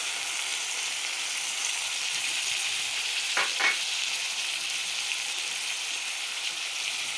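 Chopped tomatoes sizzling in hot oil with browned beef and onions in a metal pot: a steady frying hiss. Two quick clicks come about halfway through.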